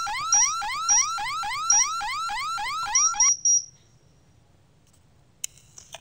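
Alarm siren of a Satel CA6 alarm system sounding a rapid rising whoop, about four a second, with short high keypad beeps as the code is keyed in. The siren cuts off about three seconds in as the alarm is disarmed, and two faint clicks come near the end.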